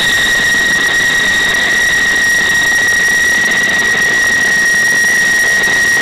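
F-16 Fighting Falcon's jet engine at taxi power: a steady, high-pitched whine holding one pitch over a broad rushing roar.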